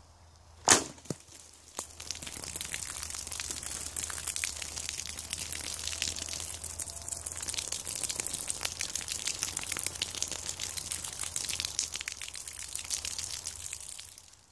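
A bow trap fires: a sharp crack as the glass-tipped arrow punches through a hanging plastic water jug, with a couple of smaller knocks after it. Then water pours steadily from the holes and splashes onto the leaf litter until it cuts off near the end.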